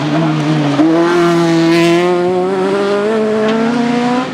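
Autocross buggy engine running hard at high revs, heard after the car has gone out of view. Its pitch steps up about a second in, then climbs slowly as it accelerates down the track.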